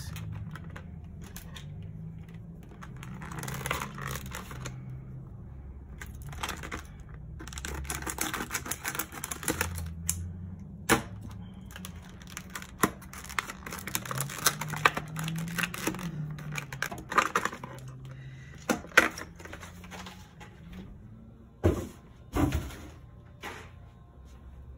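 Stiff clear plastic blister packaging being handled and pried open: rapid crackling and clicking in runs, with sharp snaps, and two heavier knocks near the end.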